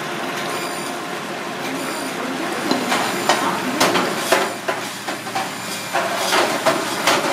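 Abalone congee simmering in a stainless steel saucepan with a steady hiss. From about three seconds in comes an irregular run of sharp knocks and scrapes as a silicone ladle scoops the thick porridge out of the pan.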